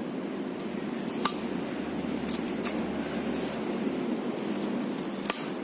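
Steady low background noise with two sharp clicks, one about a second in and one near the end, and a few fainter ticks between.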